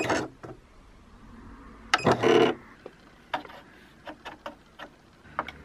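Janome Memory Craft 5900QC computerised sewing machine being threaded by hand: a sharp click at the start, a short mechanical whirr about two seconds in, then a string of light separate clicks from the needle and threader mechanism.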